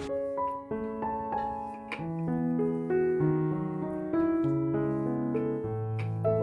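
Background piano music, gentle notes over a slow bass line.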